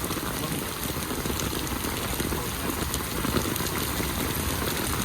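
Rain falling steadily on a hard surface, with scattered ticks of individual drops.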